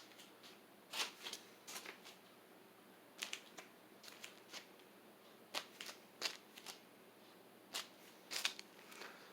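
A scattering of light, sharp clicks and ticks at irregular intervals over a faint steady background, about fifteen in all and none following a regular rhythm.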